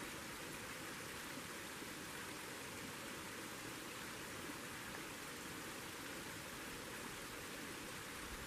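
Steady, even rushing noise with no distinct sounds in it, like flowing water or wind in the trees.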